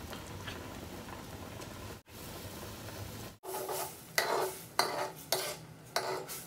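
Coconut milk simmering in a wok with a steady hiss, then a metal ladle stirring and scraping against the wok in about five strokes a little over half a second apart, working massaman curry paste into the liquid. The sound cuts out for an instant twice around the middle.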